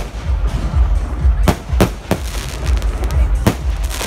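Aerial fireworks shells bursting: several sharp bangs, two close together about halfway through and another near the end, over a steady low rumble.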